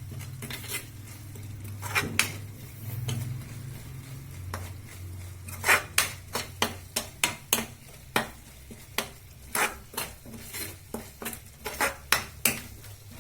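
A spoon stirring a thick jaggery and spice mixture in a kadhai, knocking and scraping against the pan in quick, irregular clicks that come thickest in the second half.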